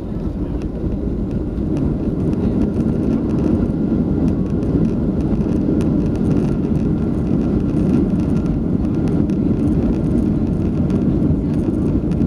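Boeing 737-700's CFM56 engines and airflow heard from inside the cabin as a steady low roar, growing a little louder over the first two seconds and then holding.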